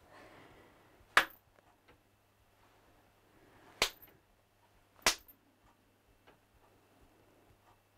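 Three sharp hand claps close to a deaf cat as a hearing test, the first about a second in and the other two close together a few seconds later.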